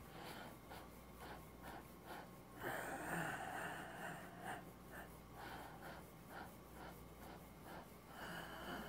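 Faint breathing, a long breath heard about three seconds in and another near the end, over a soft rhythmic rustle about three times a second from the body shaking and bouncing in a qigong warm-up.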